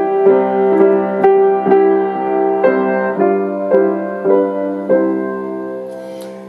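Piano playing a slow instrumental interlude between hymn verses. Notes are struck about twice a second over a held low note, and the sound dies away near the end.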